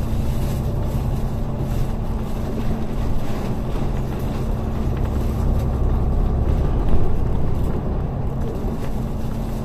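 Steady engine drone and road rumble heard from inside a bus cabin as it travels at highway speed.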